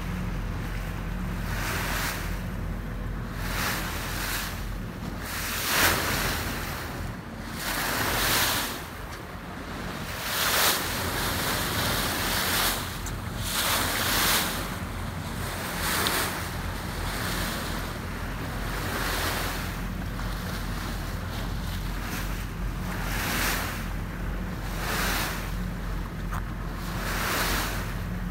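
Sea water rushing and splashing along a moving boat's bow, surging every second or two, with wind buffeting the microphone and a steady low drone from the boat's engine underneath.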